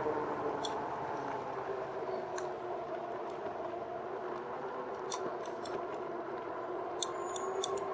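2018 RadMini fat-tyre electric bike riding on a concrete sidewalk: a steady whine from the rolling bike, with scattered sharp ticks.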